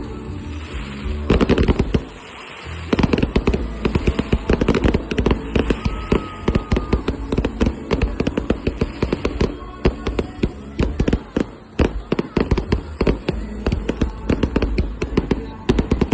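Fireworks display going off in a dense, rapid barrage of bangs and crackles, with a brief lull about two seconds in.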